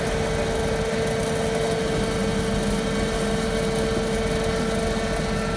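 Dazzini TCI260VH rail-mounted quarry chain saw running steadily as its chain arm cuts vertically into the ground: an even machine drone with a constant whine.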